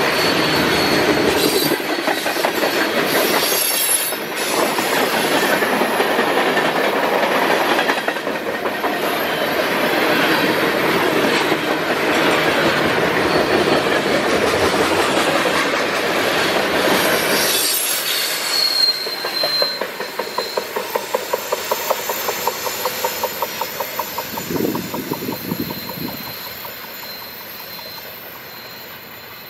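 Freight train of tank cars and gondolas rolling past close by, a dense steady roar of steel wheels on rail. About two-thirds of the way through, a brief high wheel squeal rings out. The noise then thins into a rapid rhythmic clicking of wheels over the rail joints as the last cars pass, fading away toward the end.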